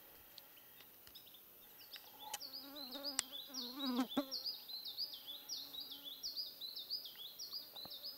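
An insect buzzing close to the microphone, its pitch wavering, from about two seconds in until a little past the middle. Behind it, a steady run of quick high chirps, each falling in pitch, about two a second.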